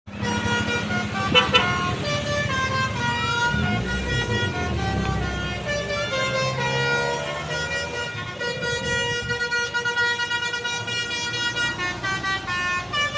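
A bus's basuri musical air horn playing a tune: a run of held notes that step from pitch to pitch, with several tones sounding together. A low engine rumble runs underneath.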